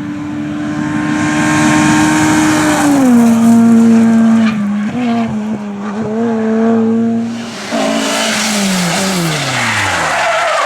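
Rally car engine held at high revs, its note stepping down about three seconds in and then falling away steadily near the end, with tyres skidding and sliding.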